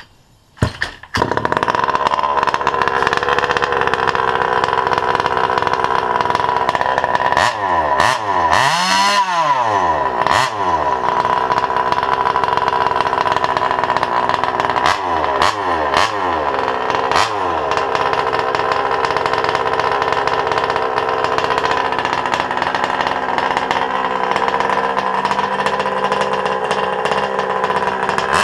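Yama 1/5-scale petrol buggy's big-bore two-stroke engine, breathing through a homemade exhaust, catching about a second in and then running at a fast, steady idle. It is revved with throttle blips, a long one around nine seconds in and three short ones a few seconds later.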